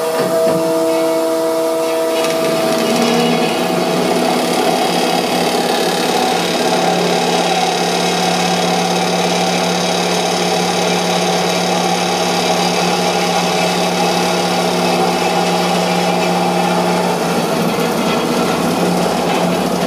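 Metal-cutting circular saw running and cutting steadily through a clamped rectangular metal tube, the blade entering the metal about two seconds in and giving a constant hum with a dense cutting noise over it.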